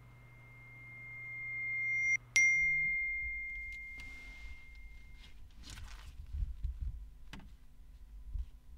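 A high steady ringing tone swells for about two seconds and breaks off, then a bright smartphone notification ding rings out for about three seconds. After it come a low steady hum inside a car and soft rustles and a click as the phone is picked up.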